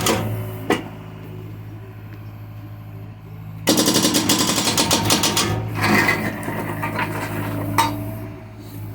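John Deere excavator's diesel engine running steadily, with a burst of rapid metallic clattering from about four to five and a half seconds in and single clanks.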